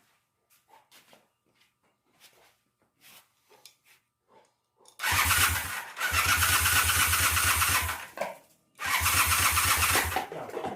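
Honda CB400T motorcycle engine being cranked over by its electric starter, jumped at the solenoid, in three bursts with short gaps starting about halfway through. Faint clicks and taps come before it.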